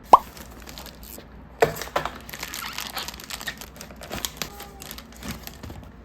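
Packaging crinkling and rustling as it is handled and pulled open, a dense crackle of many small clicks, after a single sharp click at the start.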